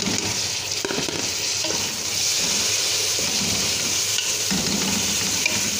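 Diced fresh tomatoes sizzling in hot oil with sautéed onions in a pot, stirred and scraped with a wooden spatula. The sizzle grows louder about two seconds in.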